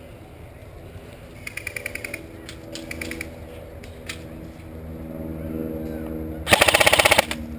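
Airsoft rifles firing full-auto bursts: a short rapid burst about a second and a half in, and a louder, closer burst of rapid clicks lasting under a second near the end.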